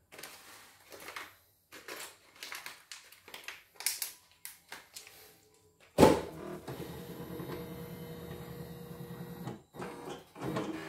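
CNY E960 embroidery machine powering up: a sharp clunk about six seconds in, then about three and a half seconds of steady motor whirring with a fast rhythm as the embroidery unit's carriage drives to its home position. Scattered light clicks and knocks of handling come before and after it.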